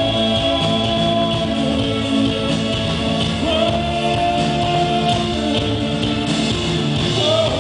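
A live rock band playing: a man sings lead over a strummed acoustic guitar and an electric guitar, holding one long note in the middle.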